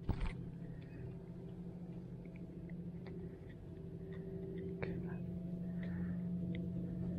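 Hands unhooking a small crappie: faint scattered clicks and light rustles, with a brief knock at the very start, over a steady low hum.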